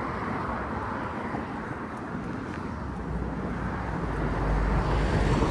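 Road traffic noise with wind on the microphone, heard from a moving bicycle; a motor vehicle's low rumble builds over the last couple of seconds as it comes close.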